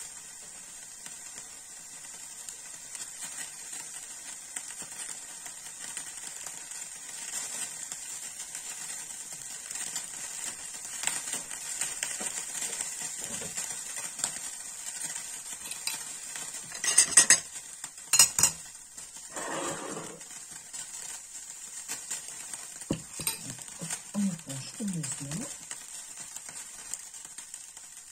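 Hot oil and cooking juices sizzling steadily in a nonstick frying pan on a gas burner, right after the monkfish has been taken out. Two sharp clatters of dishes about two-thirds of the way through are the loudest sounds.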